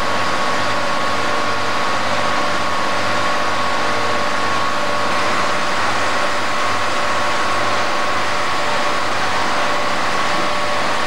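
Heavy machinery's engine running steadily: an unchanging drone with steady tones and no revving.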